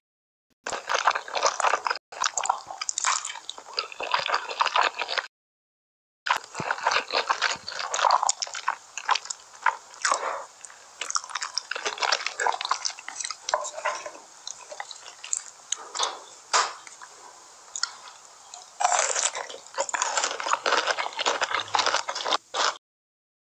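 Close-miked eating: dense, irregular wet chewing, crunching and smacking from a mouth right at the microphone, broken twice by a short dead-silent gap where clips are cut together.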